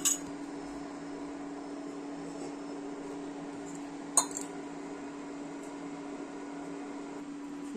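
Kitchen vessels clinking sharply twice, once at the very start and once about four seconds in, as the boiled tea is taken off to be strained, over a steady low hum.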